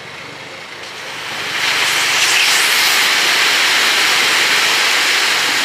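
Compressed air hissing out of a heavy truck's air system. The loud, steady hiss swells over about a second and then holds for about four seconds.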